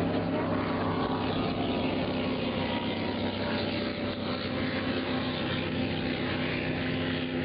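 A boat engine running steadily at an even speed, with the rush of water and wind over it.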